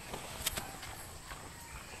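Footsteps of a barefoot person walking on a dirt path, faint and irregular, with one sharp click about half a second in.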